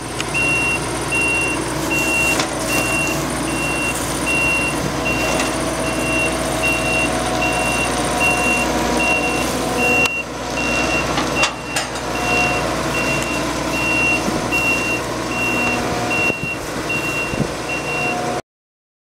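Claas Tucano combine harvester's engine running with its reversing alarm beeping steadily, one high tone on and off at an even pace. The sound cuts off suddenly near the end.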